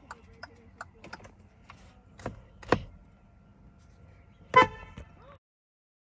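A car's hazard-light flasher ticks about three times a second and stops about a second in. A couple of sharp clicks follow, then a single short car-horn toot near the end.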